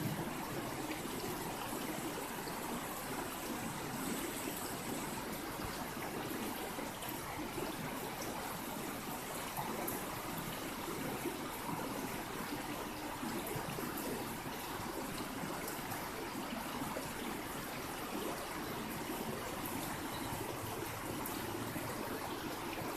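River water flowing steadily, an even rushing stream.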